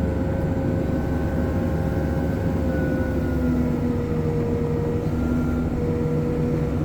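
Hitachi 370 wheel loader's diesel engine running steadily under load, a heavy low rumble with a steady whine over it whose pitch dips slightly a few seconds in.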